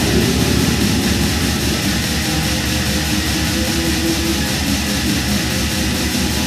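Dutch black metal recording: heavily distorted guitars over fast, dense drumming, loud and unbroken.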